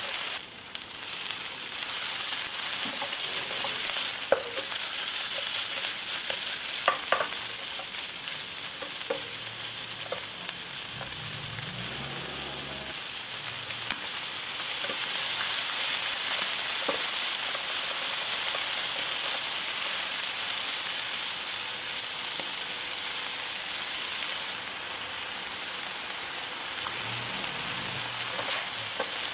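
Oil sizzling steadily in a nonstick frying pan as a Thai stir-fry of garlic, shallots, chilies, chicken liver and basil is cooked, with a few light clicks of a plastic spatula against the pan.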